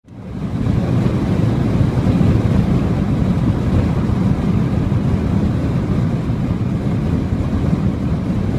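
Steady road and wind noise inside a Volvo car cruising at motorway speed, a constant low rumble that fades in quickly at the start.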